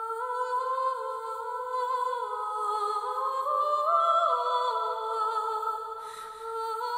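Music: a sustained chord that slowly shifts from pitch to pitch, with a brief hiss about six seconds in.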